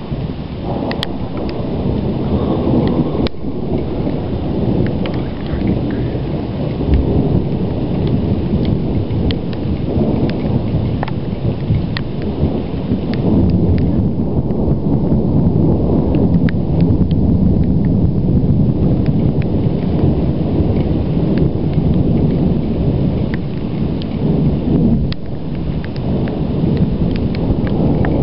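Continuous low rumbling thunder that swells and eases, with scattered faint ticks over it.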